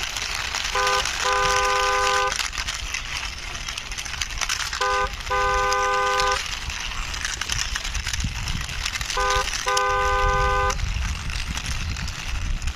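A toy vehicle's horn toots three times, about four seconds apart, each time a short beep then a longer one of about a second. Under it runs a steady gritty crackle of small toy wheels rolling over rough ground as the toy army jeep is pushed along by hand.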